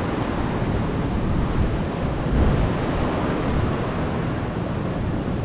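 Steady rushing noise of wind buffeting the microphone, mixed with surf.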